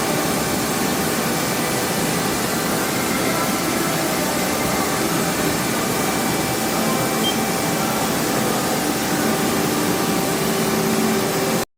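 Haas ST-10 CNC lathe running under power, a steady mechanical whir with a few faint steady tones in it. It cuts off suddenly near the end.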